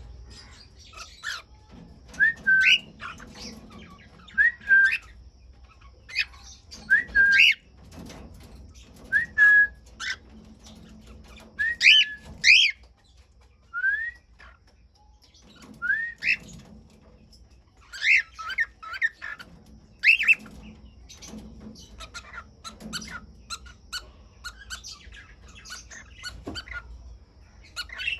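Cockatiels calling: short rising whistled chirps, one every second or two, some in quick pairs, with a fast run of chirps at the very end.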